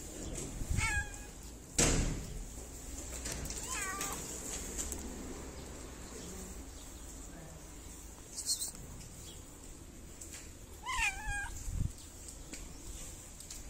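A stray cat meowing three times, short separate meows spread across several seconds, with a single sharp knock about two seconds in.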